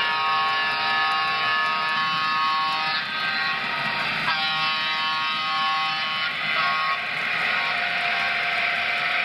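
Sound decoder of an N scale Broadway Limited Paragon4 EMD F3 diesel locomotive playing a multi-chime air horn: two long blasts, the second bending in pitch as it starts, over a steady running noise.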